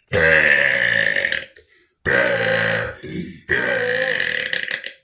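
Three long, loud human burps one after another, each lasting about a second or more, with short pauses between them.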